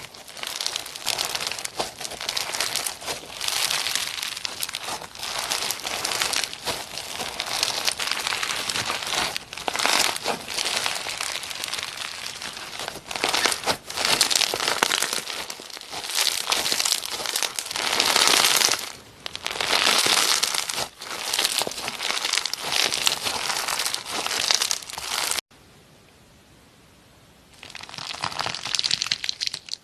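Slime being squeezed and worked by hand close to the microphone, a dense crackling and crinkling that comes in surges. About three-quarters of the way through it drops out for about two seconds, then starts again.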